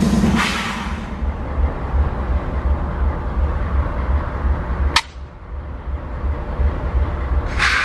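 Large diesel-electric locomotive engine idling at a standstill with a low, pulsing rumble. There is a sharp click about five seconds in and a short burst of hiss near the end.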